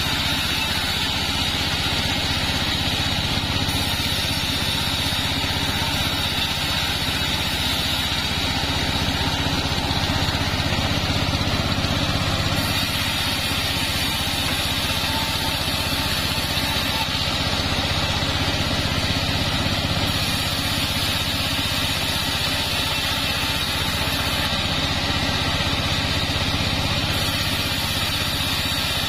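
Engine-driven mobile bandsaw mill running steadily while its blade rips a length of sengon wood.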